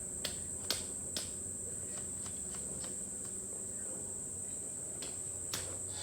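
Steady high-pitched insect chorus, a continuous cricket- or cicada-like trill, with a few light clicks or knocks, mostly in the first second or so and once near the end.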